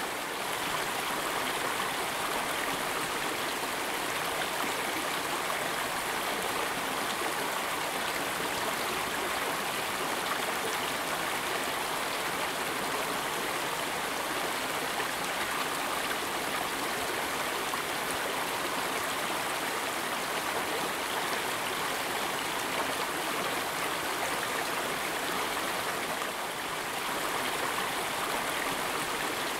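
Steady rush of a flowing stream, a dubbed water sound effect rather than live sound from the scene.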